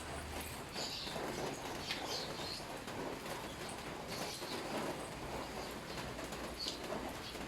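Birds chirping, short calls repeating about once a second, over a steady low hum.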